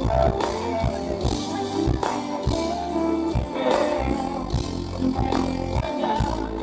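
Live reggae band music: a heavy bass line under regular drum hits and guitar.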